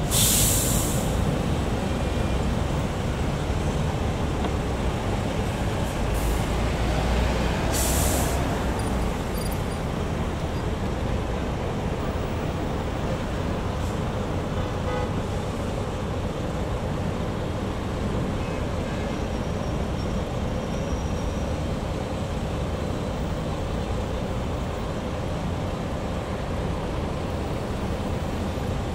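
Road traffic at a city intersection: a steady rumble of vehicles running and idling nearby. Two short bright hisses stand out, the louder at the very start and another about eight seconds in.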